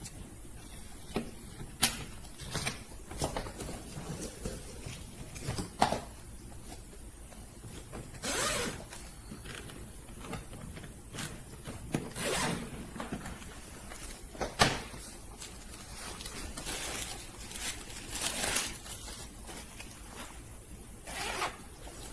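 Scattered clicks and knocks with several short rustling swishes, a few seconds apart, like objects being handled.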